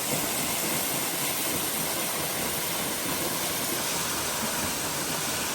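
Rushing water making a steady, loud, even hiss.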